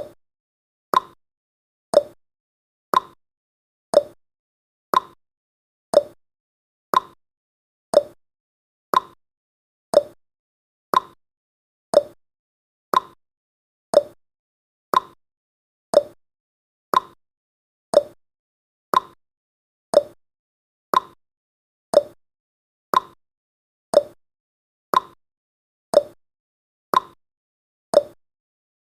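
Clock-style ticking sound effect of a countdown timer, one short tick per second, alternating slightly in pitch like a tick-tock.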